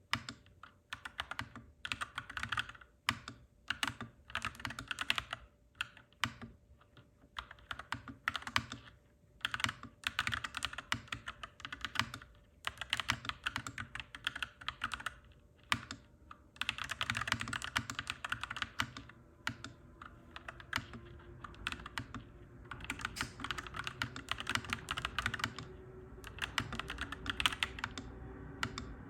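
Clacky mechanical keyboard being typed on in bursts with short pauses between them. In the last third a low rumble and a faint hum rising slowly in pitch build underneath: a train passing.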